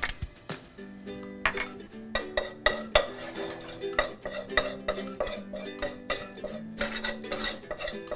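A utensil stirring and scraping in a frying pan, with many quick clicks and knocks against the pan, as flour is worked into the oil and fried ingredients. Soft background music plays underneath.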